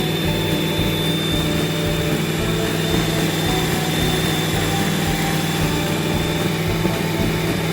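1979 Range Rover Classic's V8 engine running steadily, with a thin high whine over the low engine note.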